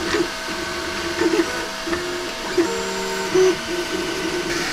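Anycubic FDM 3D printer running a print: its stepper motors whine in short tones that hop in pitch as the print head moves, over a steady fan hum.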